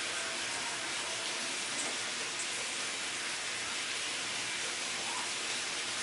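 Fans of a desktop PC running: two 200 mm intake fans, radiator fans and graphics-card fans making a steady, even airy hiss with a faint hum underneath, as the machine powers on for its first self-test.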